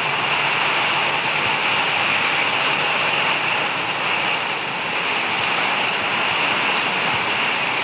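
Heavy wind-driven rain pelting the RV's windows, door and roof, heard from inside: a steady, even rushing noise with a few faint taps.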